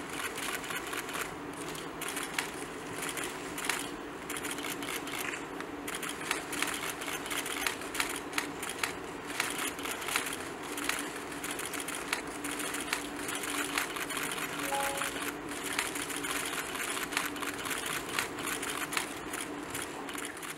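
Many camera shutters clicking in quick, irregular bursts from the audience, over a faint steady tone of soft background music.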